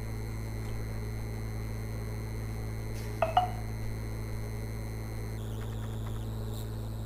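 Steady low electrical hum with a faint hiss and thin high whines from the recording setup, with one short pitched blip about three seconds in.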